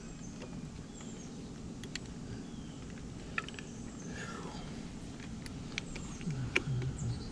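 Scattered light clicks and taps of small outboard lift-pump parts (gaskets, base plate, screws) being handled and fitted during reassembly, over a steady low hum. A short low voice murmur comes near the end.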